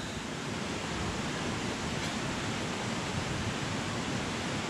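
Steady rush of a mountain creek's flowing water.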